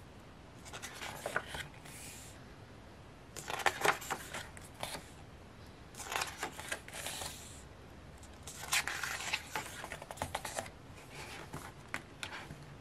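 Photobook pages being turned by hand: a brief paper rustle and slide every two seconds or so.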